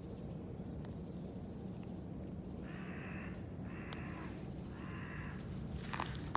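A crow cawing three times, evenly spaced, each caw harsh and about three-quarters of a second long. A brief, louder scuffing noise follows near the end.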